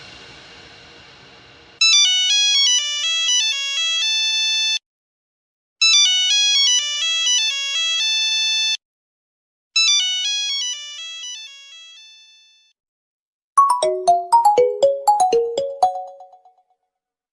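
Two mobile phone ringtones in turn. The first is a bright, high-pitched electronic melody of quick layered notes, played three times with short pauses, the third time fading away. About three and a half seconds before the end, a second, lower ringtone of quickly struck, bell-like notes plays a short phrase.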